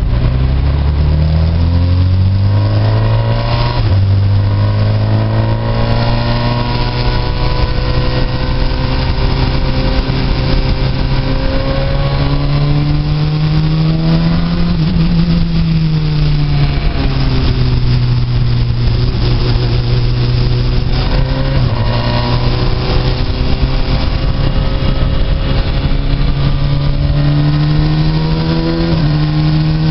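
Radical SR3 RS race car's motorcycle-derived four-cylinder engine, heard from the cockpit. It accelerates with its pitch rising and drops in pitch at an upshift about four seconds in. It then pulls on at moderate revs, rising and falling in pitch as the car works through the corners.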